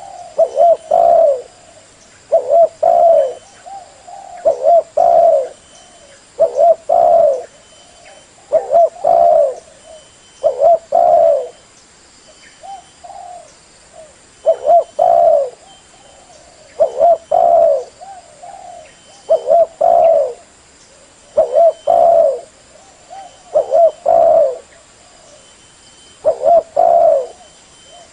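Spotted dove (tekukur) cooing: short phrases of several low coos, each about a second long, repeated about every two seconds.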